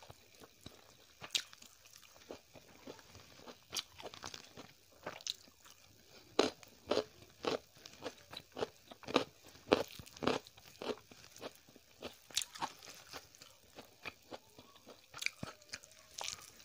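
Close-miked chewing: wet mouth sounds and crisp crunching clicks as a mouthful of rice and leafy greens is eaten by hand, the crunches coming thickest and loudest in the middle at about two a second.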